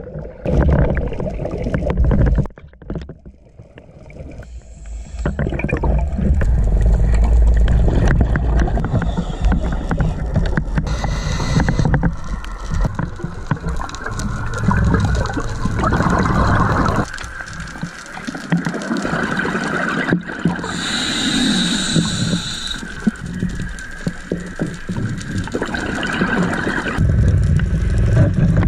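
Underwater audio of a scuba diver: a muffled rumble and rush of bubbles and regulator breathing, starting with the churn of bubbles as the diver enters the water.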